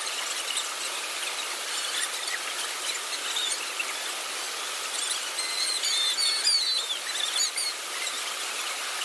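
Forest ambience: a steady high hiss, with a quick run of high, squeaky chirps about five to seven seconds in.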